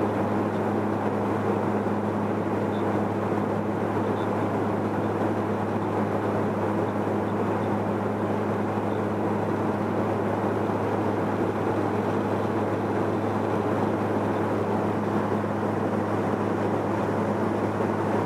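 Steady cabin noise of a jet airliner in flight, with rear-mounted engines: the even rush of engines and airflow over a constant low hum.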